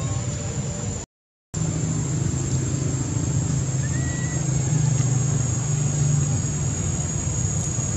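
Outdoor background noise: a steady low rumble with a constant thin high-pitched whine over it. It drops out to silence for a moment about a second in, and a faint short chirp comes near the middle.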